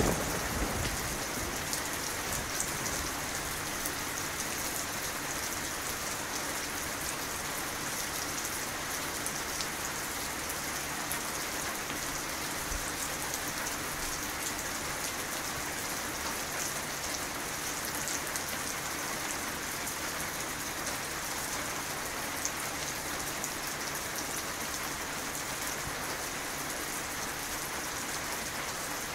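Steady rain falling, a dense even patter of drops. The rumble of a thunderclap dies away in the first second.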